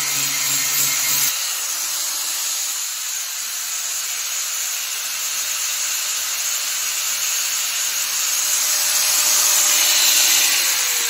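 Electric grinder abrading a metal part, a steady gritty hiss over the motor's hum, taking material off to thin the part. The motor winds down with a falling pitch near the end.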